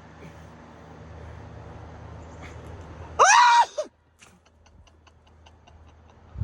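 A man lets out one loud, high-pitched whoop of excitement, rising then falling in pitch, about three seconds in, over a steady low rush. Faint, even ticking follows, about five ticks a second.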